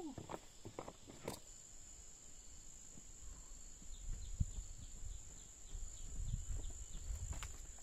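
Insects droning steadily in the forest, one continuous high-pitched note. A few sharp clicks and knocks come in the first second and a half, and a low rumble runs through the second half.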